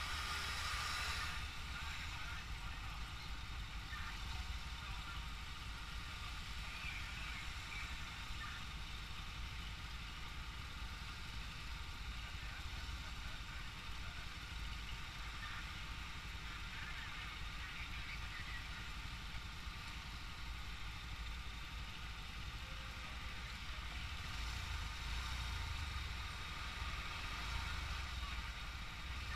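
Road traffic with heavy trucks passing, over a steady low rumble. It is louder for a moment at the start as a cargo truck goes by, and again near the end as another truck approaches.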